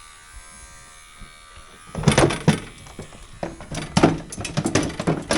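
Irregular knocking and rattling that starts about two seconds in, over a faint steady hum.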